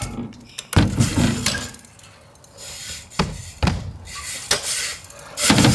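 A BMX bike knocking and thudding on skatepark ramps as it rolls, lands and hits the ramp edges, with several separate impacts. The loudest come about a second in and again near the end.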